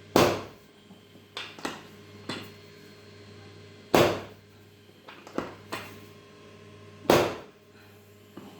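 Chiropractic adjustment: three sharp thuds about three to four seconds apart, with fainter clicks and pops between them.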